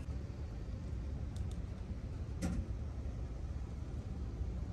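Faint, steady low background rumble with a single light click about two and a half seconds in.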